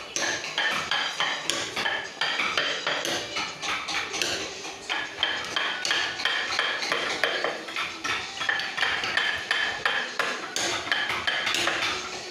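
Rapid, uneven metallic tapping of hammers on wood-carving chisels, several strikes a second, each with a short ring.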